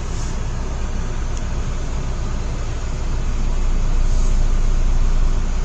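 Car cabin road noise while driving: a steady low rumble of the engine and tyres, growing a little louder about three seconds in.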